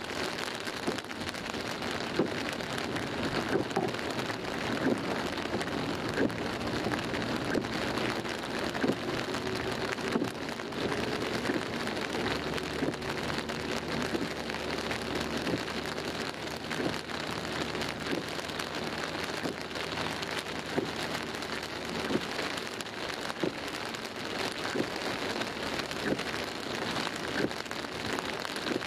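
Heavy rain falling on the roof and windscreen of a moving car, heard from inside the cabin as a dense hiss full of separate drop hits. The car's engine and tyres on the wet road run steadily underneath.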